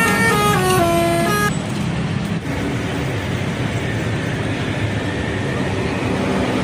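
Indonesian bus telolet horn playing a short tune of stepped, pitched notes that falls at the end, cut off suddenly about a second and a half in. After it comes a bus engine running with steady traffic noise.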